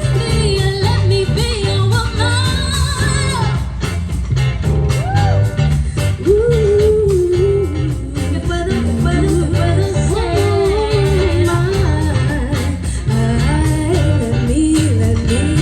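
Live band playing an upbeat pop song, with a steady bass and drum groove under a wavering sung melody.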